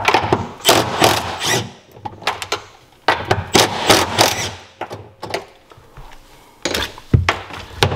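Cordless power driver running in two short bursts on the engine-mount bolts of a Sea-Doo 787 while a shim plate is fitted under the mount, followed by a few sharp metal knocks and clunks near the end.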